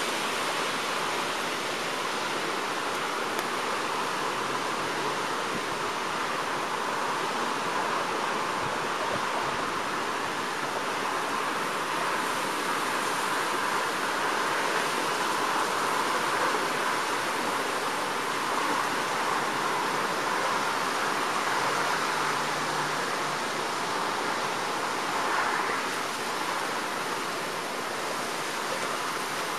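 Storm wind rushing steadily through leafy trees, a continuous hiss that swells a little now and then, from the winds of an approaching hurricane.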